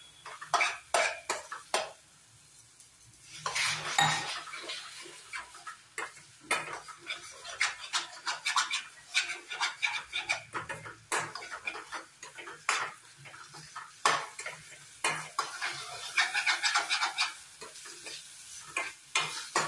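Metal spatula scraping and clinking against a stainless steel kadai as thick semolina and wheat-flour halwa is stirred, in quick irregular strokes, with a short pause about two seconds in.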